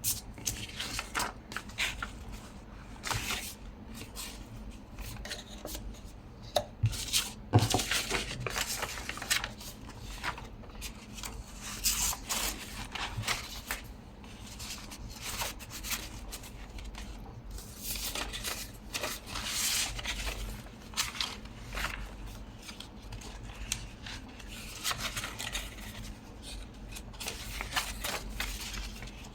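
Paper and craft supplies handled on a tabletop: irregular rustles, scrapes and light taps.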